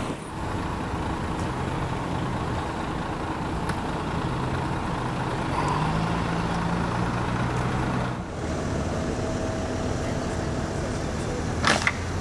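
Vehicle engines idling with a steady low hum and road traffic noise. A short sharp noise stands out near the end.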